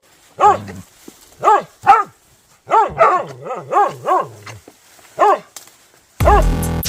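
A dog barking repeatedly, about nine short sharp barks in uneven groups. Near the end, loud electronic music with a heavy bass comes in under a last bark.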